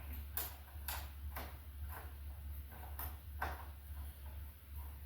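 Light wooden knocks and clicks from a rough-sawn board and its ripping jig being handled at the table saw, several in the first two seconds and two more about three seconds in, over a steady low hum.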